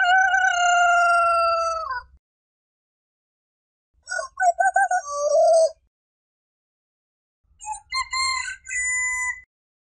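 Roosters crowing three times with silence between: a long held crow that drops in pitch at its end, then a choppier crow about four seconds in, then a stuttering crow near the end.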